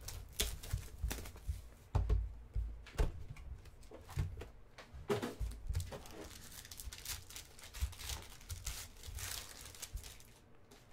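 A sealed trading-card box and its foil pack being torn open by hand: wrapper and foil ripping and crinkling, with sharp taps and clicks against the cardboard box.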